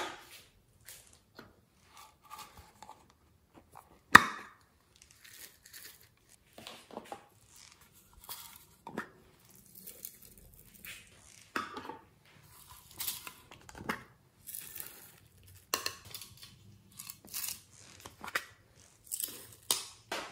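Small plastic containers being shaken and tapped as sequins, star sprinkles and confetti glitter scatter into a glass dish of slime: a run of short, irregular rustling and rattling bursts, with one sharp knock about four seconds in.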